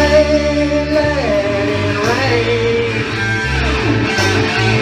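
Rock music: electric guitar playing, with a man singing long drawn-out notes that slide in pitch.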